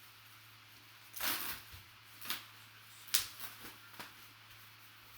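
Handling noise from a framed memorabilia piece being picked up and moved about: a short rustle about a second in, then several sharp clicks and taps.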